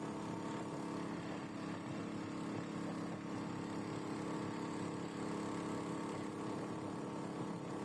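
SPS 7.5 hp geared motor-paddle (long-shaft boat motor) running steadily at an even speed, driving the boat.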